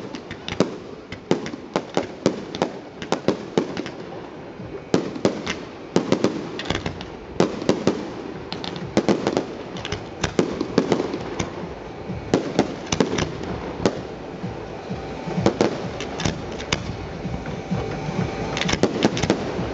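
Aerial fireworks bursting in quick, irregular succession: many sharp bangs, several a second at times.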